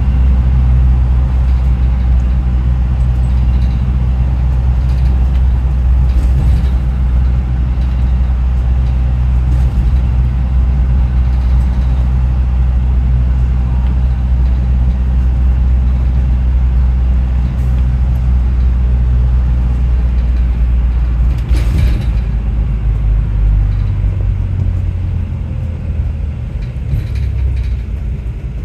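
Stagecoach London bus heard from inside the passenger saloon while under way: a steady low drive hum and road rumble, the hum the uploader calls a decent electric-train sound. A short loud rush of noise comes about 21 seconds in, and the hum changes pitch and grows quieter over the last few seconds.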